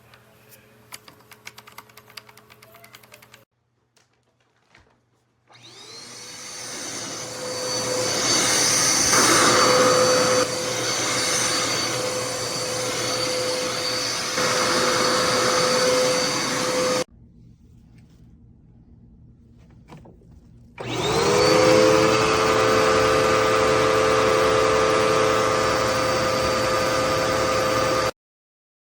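Dirt Devil Endura Reach bagless upright vacuum cleaner's motor running twice: each time it spins up with a rising whine, runs steadily with a high whine, then cuts off suddenly. A few light clicks of handling come before the first start.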